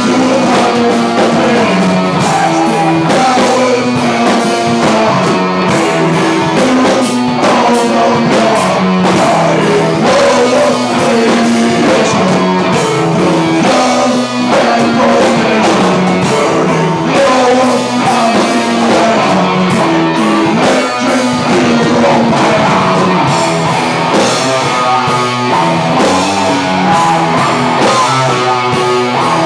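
Live rock band playing loud, with electric guitar, electric bass and drum kit.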